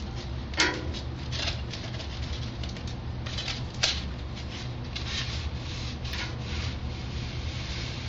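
Foam cylinder being turned against a wire foam cutter: scratchy rubbing and crackling as the wire cuts, with two sharp snaps, about half a second and about four seconds in, as the wire breaks through hardened glue seams. A steady low hum runs underneath.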